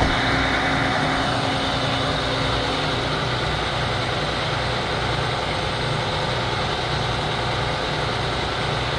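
Heavy engine of a tree removal rig idling steadily, with a higher hiss that fades out about a second in.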